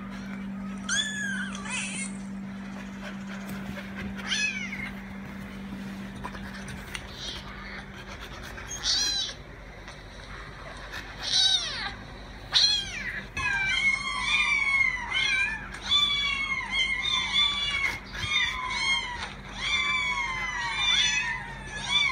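Samoyed dogs whining in high, pitched calls that rise and then fall. A few come singly in the first half, then a quick run of them, about one to two a second, through the second half. A steady low hum runs under the first few seconds.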